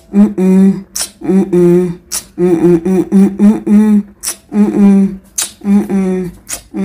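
Part of a song: a wordless sung or hummed vocal melody in short held notes, with a sharp snap-like hit about once a second as the beat.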